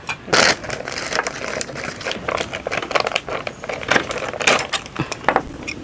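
Irregular light clatter of tableware being handled, with several sharp clicks and knocks a second.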